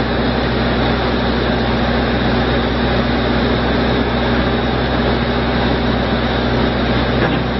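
Case 580M Series 2 backhoe loader's diesel engine running steadily, loud and close, at an even speed.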